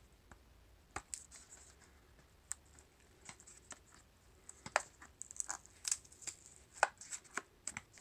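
Fingers and a fingernail picking and peeling at the black plastic wrapping of a small battery pack: irregular scratchy clicks and crinkling rustles, sparse at first and busier from about halfway through.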